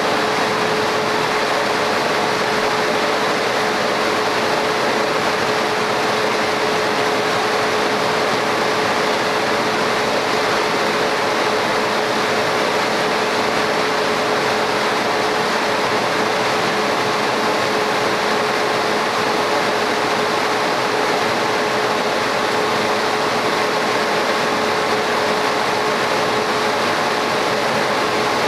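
Laser cutting machine running while it engraves stone tile: a loud, steady fan-like whir with a constant mid-pitched hum.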